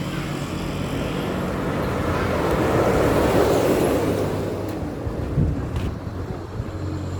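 Road traffic: a vehicle passing by, its engine and tyre noise swelling to a peak a few seconds in and then fading.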